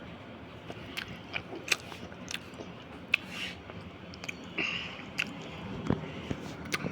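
A person chewing and eating an egg yolk, with scattered wet mouth clicks and smacks.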